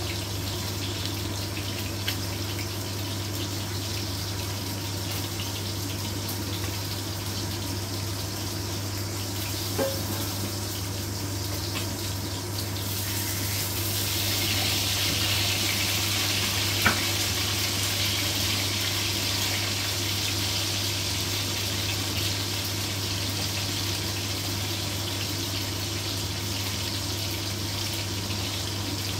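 Pork chops sizzling in hot oil in a frying pan. The sizzle grows louder about halfway through as a chop is turned with a fork, and a few light clicks of the fork against the pan can be heard. A steady low hum runs underneath.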